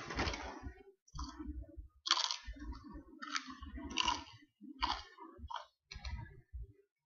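Someone chewing crunchy chips right at the microphone: short, irregular crunches with mouth sounds, roughly one every half second to second, with quiet gaps between them.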